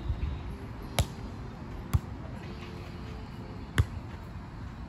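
Volleyball being hit by players' hands and arms during a rally: three sharp slaps, about a second in, just before two seconds and near four seconds.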